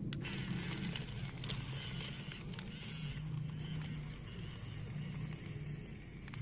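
Small electric motors of a Huina 1331 remote-control toy excavator whirring, with their pitch shifting slightly, and a few sharp plastic clicks.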